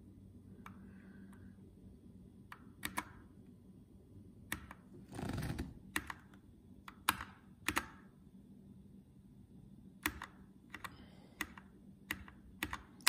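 Single key presses on a Keychron K2 mechanical keyboard with Gateron Red switches, faint isolated clicks about once a second, irregular rather than typing speed, as the RGB backlight modes are cycled. About five seconds in there is a longer, louder knock-and-rustle.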